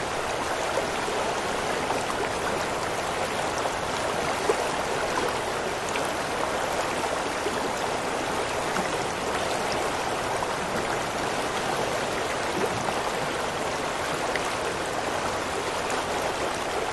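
Creek water flowing, a steady rushing and trickling, from an ambisonic recording made on a Rode NT-SF1 microphone. Its direction is swept around the listener during playback.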